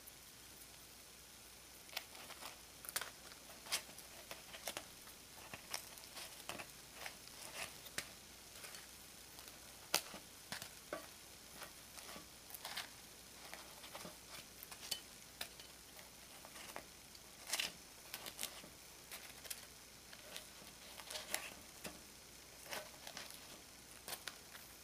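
Thin wooden skewers clicking and scraping against the nonstick plate of a Nichinen takoyaki maker as cooked takoyaki balls are lifted out one by one: irregular sharp ticks, several a second, over a faint steady hiss.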